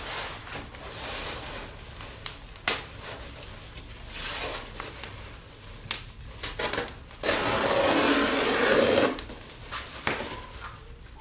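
Hand work fitting a heat-reflective sheet: scattered clicks, taps and rustles of material being handled, with one louder crumpling, scraping noise lasting about two seconds a little past the middle.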